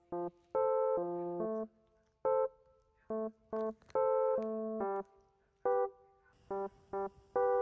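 Background music: a light, bouncy keyboard tune played in short, separated notes and chords with brief gaps between them.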